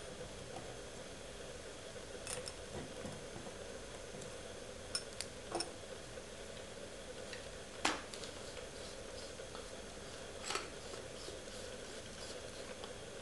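A few short, sharp metal clicks and taps as the brass and aluminium parts of a Rosco hand coffee grinder are taken apart and handled, the sharpest about eight seconds in, over a faint steady hum.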